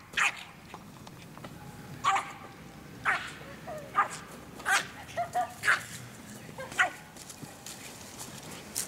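American Eskimo dog barking at play: about ten short, sharp barks at uneven intervals.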